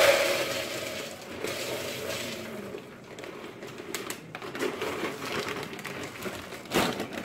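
Dry black beans pouring from a plastic bulk bag into a bowl, a rattling rush that trails off within the first second, then the plastic bag crinkling and crackling as it is handled and folded over.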